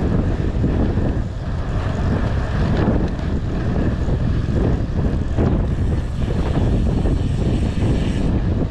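Wind buffeting the microphone of a camera on a moving bicycle: a steady, low, blustery rumble.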